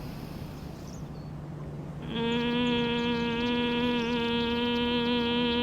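Steady nasal humming on one held note, the bee-like 'bumblebee' sound of the exhalation in Bhramari pranayam (bee breath), starting about two seconds in.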